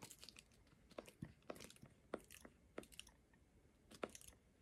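Faint, irregular clicking of a skincare bottle's spring pump being pressed over and over. The pump is still priming and not yet dispensing product.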